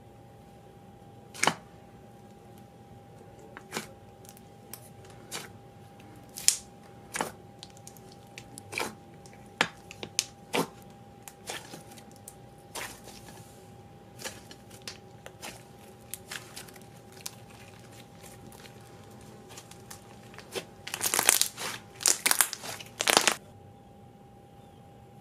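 Hands poking, squeezing and stretching DIY clay-textured slime, which gives off irregular sharp crackles and crinkly pops. About 21 seconds in, a quick run of louder crackles comes close together.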